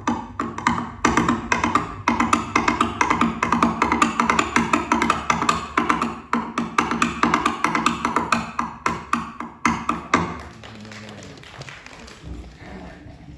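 Coconut shell halves knocked together as Foley horse hooves galloping on a hard surface: rapid hollow clip-clops over background music, dropping away after about ten seconds. The shells give only a two-legged beat, not the four of a real horse.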